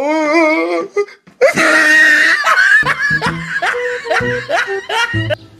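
Loud human laughter, ending in a quick string of short rising sounds.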